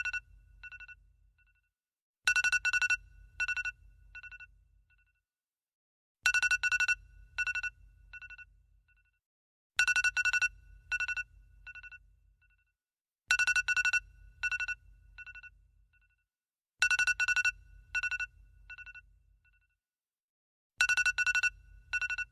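iPhone alarm tone ringing: a quick run of bright electronic beeps followed by a few fading echo notes, the phrase repeating about every three and a half seconds.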